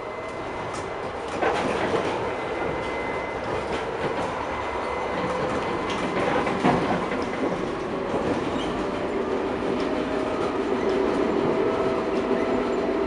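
ČKD/HCP RT6N1 Tatra tram running on the rails, heard from inside the passenger compartment: steady rolling rumble, with wheels knocking over rail joints, sharply about a second and a half in and again past the middle. In the second half a motor whine comes in and climbs slowly in pitch.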